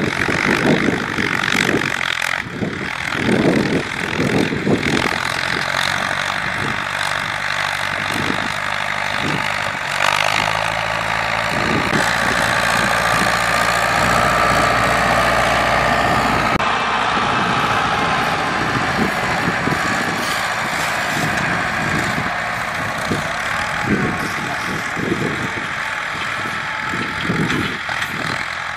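Ford 6600 tractor's three-cylinder diesel engine running steadily under load as the tractor pushes soil with its front blade, louder for a few seconds around the middle.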